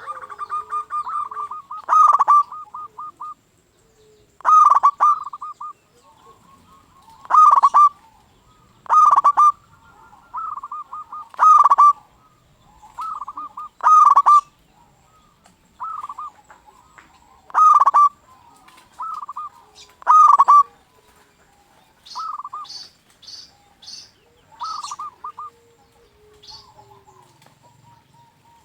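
Zebra dove (perkutut) cooing over and over: a loud coo phrase every two to three seconds, each trailing off into a quick run of rolling notes. A few short, high chirps come in near the end.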